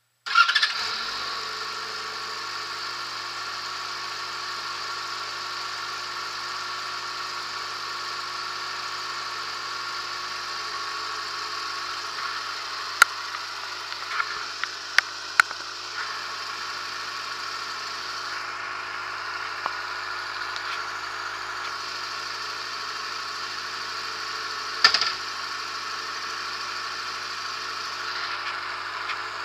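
Yamaha XJ6S's 600 cc inline-four engine starting, with a loud burst as it catches, then settling into a steady idle. A few short sharp clicks sound over the idle in the middle and one louder one near the end.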